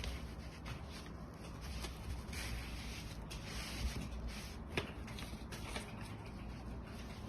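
Hands fitting a cloth pad onto a spray mop's plate: faint rubbing and rustling of fabric, with a couple of small clicks near the middle.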